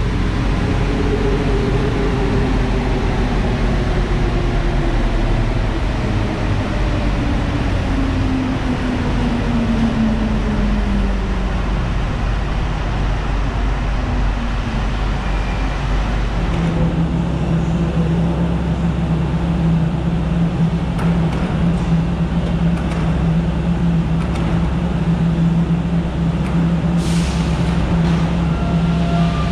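Rubber-tyred Santiago Metro Line 1 train braking to a stop: its traction motor whine falls steadily in pitch over about ten seconds. After a short lull, a steady low electrical hum sets in and holds while the train stands, with a few light clicks.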